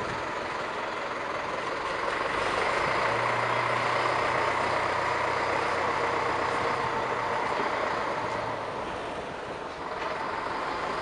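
Narrow-gauge railway locomotives at a standstill and moving off: a steady rushing noise that grows louder about two seconds in, with a low hum underneath through the middle, easing near the end.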